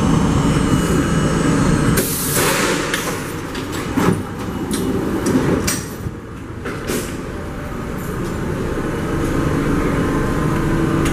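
R32 subway train in a station. A low running rumble gives way about two seconds in to a sudden hiss of air, followed by scattered knocks and clicks. The standing train then gives a steady low hum.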